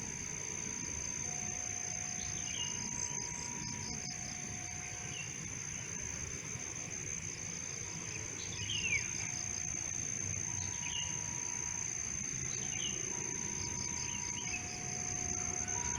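Insects trilling in a steady high drone with pulsed cricket chirping, several short falling bird chirps, and a slow two-note tone alternating high and low, each note about a second long, with a pause in the middle of the passage.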